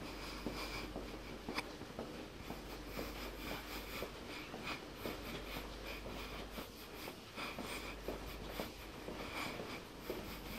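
Footsteps walking on a hard floor along an enclosed pedestrian tunnel, a run of short scuffs and taps over a steady low hum.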